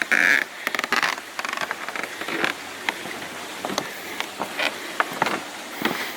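Footsteps of a person walking along an old railway grade: irregular crunching and scuffing steps, with a louder scuff right at the start.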